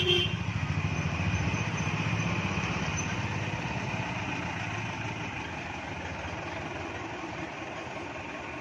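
A motorcycle engine running with a steady low pulsing beat that slowly fades. A sharp metallic knock right at the start.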